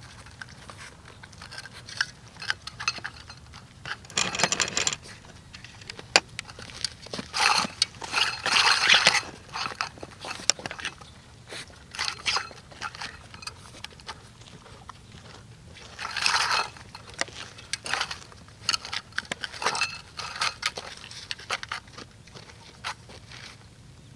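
A metal muffin tin scraping and rattling on dirt as a dog noses and paws at the tennis balls in its cups, in irregular bursts with scattered clicks.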